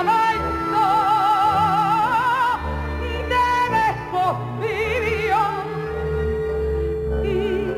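Background music: an operatic voice singing long held notes with a wide vibrato, over an instrumental accompaniment.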